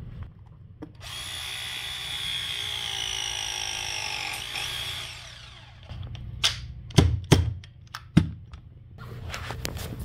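Milwaukee cordless press tool running steadily for about four and a half seconds as its jaws crimp a copper press fitting onto a pipe end, the motor's pitch sagging slightly before it stops. It is followed by a few sharp clicks and knocks from the tool and fitting being handled.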